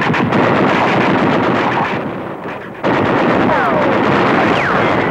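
Battle gunfire: dense, rapid rifle and machine-gun fire with explosions. The din dips briefly and comes back with a sudden loud blast about three seconds in, followed by a few falling whistles.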